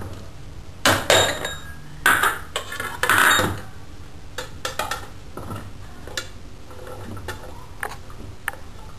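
Chopped vegetables tipped and scraped off a ceramic plate into a plastic bowl: a few sharp clatters and scrapes in the first three and a half seconds, then lighter clinks and taps.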